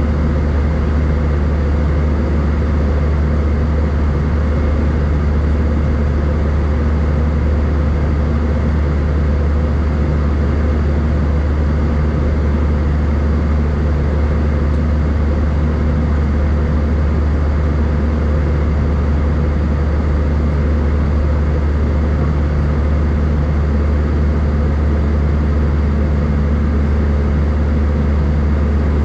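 Airbus A319 in flight, heard from inside the cabin: the steady, deep drone of its jet engines and the airflow, with a few faint steady hums above it.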